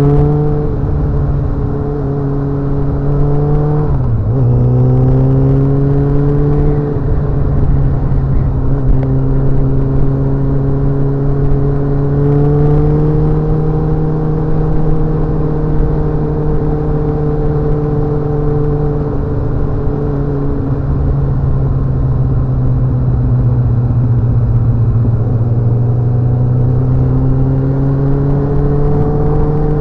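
A vehicle engine running under way, its pitch dipping sharply and climbing again about four seconds in, then drifting slowly up and down and rising again near the end.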